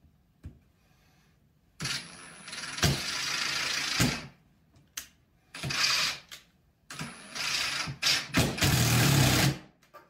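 Ridgid cordless drill-driver running in three bursts as it drives wood screws into plywood, the first and last lasting two to three seconds each and a short one between.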